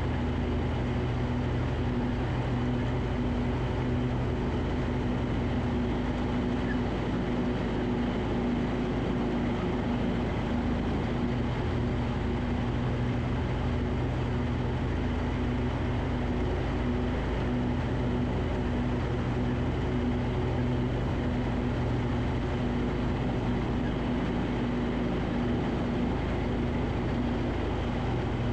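Garden tractor engine running steadily at mowing speed, a constant hum with no change in pitch.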